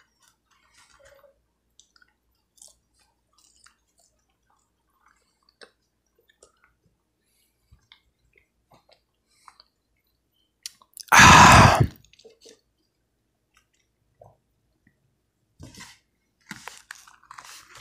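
A person chewing food, with faint, scattered small wet mouth clicks. One short, loud rough burst of noise comes about eleven seconds in, and there is light rustling near the end.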